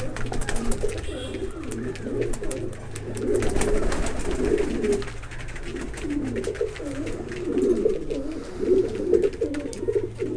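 Many pouter pigeons cooing at once, a dense overlapping chorus of low cooing, with scattered wing flaps and light clicks.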